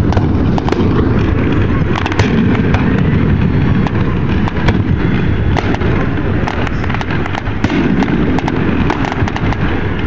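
Fireworks display: a continuous barrage of aerial shells bursting, many sharp pops and cracks close together over a constant low rumble.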